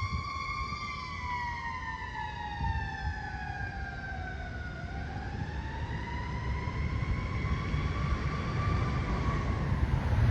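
Fire engine siren on a slow wail: the pitch falls for about four and a half seconds, climbs back up, and fades out near the end, over a low rumble.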